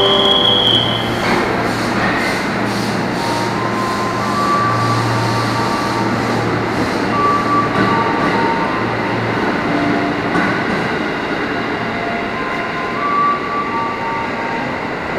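KRL Commuterline electric multiple-unit train pulling out of the platform and running past, a steady rumble of wheels and traction motors with short electric motor tones scattered through it. A brief high beep sounds at the very start.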